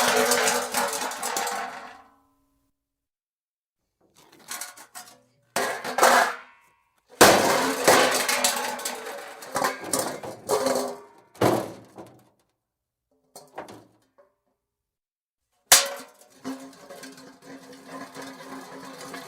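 Metal car hubcaps dropped and rolling on concrete, several separate takes. A rolling hubcap fades out in the first two seconds. After a pause come clattering hits, and about seven seconds in a hubcap lands with a sharp crash and clatters and wobbles down over a few seconds. Near the end another sharp hit leads into a steady rolling, spinning rattle.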